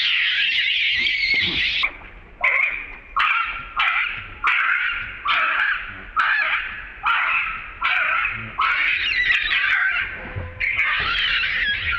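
Baby long-tailed macaque screaming in distress. It gives one long scream, then a string of short shrieks a little more than one a second, then another long scream near the end.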